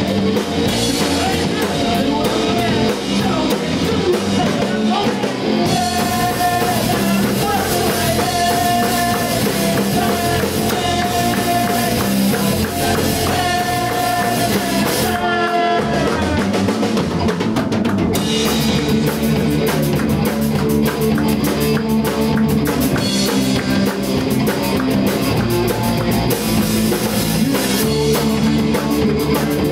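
Live rock band playing, with electric guitar, electric bass and drum kit under a lead vocalist rapping and singing. A little past halfway the band thins out briefly, then comes back in full.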